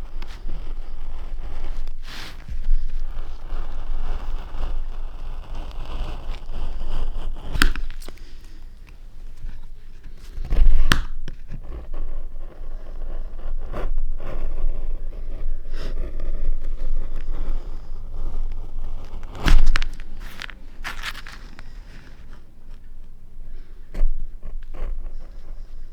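Hand work on a linocut block and paper: irregular scraping and rustling, broken by a few sharp knocks, the loudest about eleven seconds in and again near twenty seconds.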